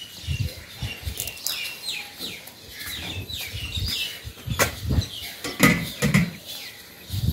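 Small birds chirping, a run of quick downward-sweeping calls, over a few sharp knocks of steel pots and bowls being handled and set down, with low rumbles of wind on the microphone.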